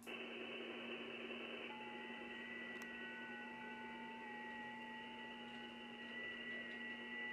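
Amateur radio receiver audio on the 6-meter band: a faint hiss, cut off above the voice range, comes on at once. About two seconds in, FT8 digital signals join it as steady tones that step slightly in pitch, one low and one higher, over a low hum.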